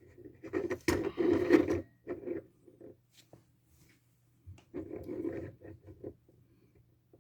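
Wooden dresser drawer scraping and rubbing on its runners as it is handled and slid, in two stretches: one at the start, a second about halfway through.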